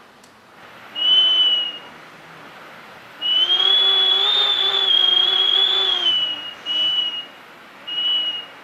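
Typhoon wind whistling through a gap in the building as a draught: a high, nearly steady whistle comes in four gusts, the longest about three seconds, over a constant rush of wind.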